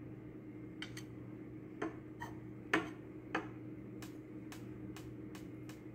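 Glass capillary tube dropped down a glass drop tube onto the bench, clicking a few times and then bouncing in a run of ticks that come quicker and quicker. This packs the benzoic acid sample down into the capillary's closed end for a melting-point test. A faint steady hum runs underneath.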